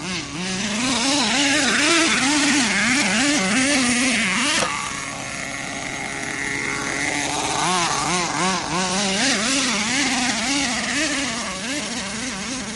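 Nitro RC monster truck's small glow-fuel engine revving up and down over and over as the throttle is worked. It runs loudest for the first few seconds, drops off suddenly about a third of the way in, then rises and falls again in quick revs.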